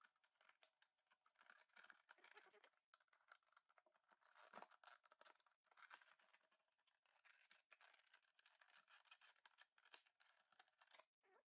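Faint, irregular scraping and crackling as the clear lens of an oven-heated headlight is pried and pulled away from its plastic housing.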